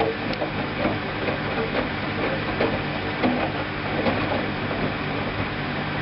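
Hoover front-loading washing machine in its first intermediate spin: a steady motor hum with irregular knocks and rattles from the drum.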